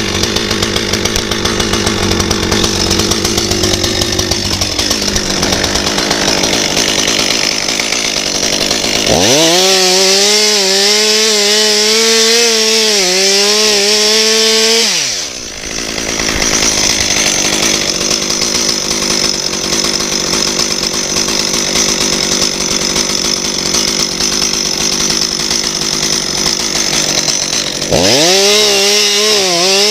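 Chainsaw cutting through lime tree limbs, running at high revs throughout. For two stretches its engine note rises and holds high and clear, then dips briefly about halfway before the cutting resumes.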